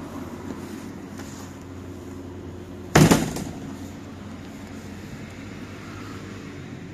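A Volvo 7900 Hybrid bus's fold-out wheelchair ramp is flipped open and lands with a single loud bang about three seconds in, over a steady low hum from the bus.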